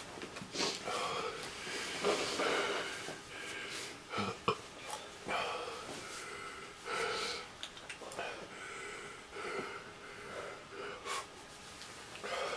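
Men breathing hard and sniffing, one blowing his nose into a tissue, in reaction to the burn of a 7.1-million-Scoville chilli-extract sauce. The breaths come in a string of separate gusts.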